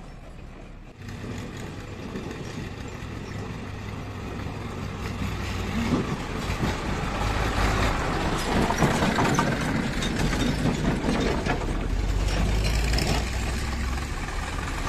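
Massey Ferguson 1035 DI tractor's three-cylinder diesel engine running as the tractor pulls a trolley toward and past, getting louder from about six seconds in.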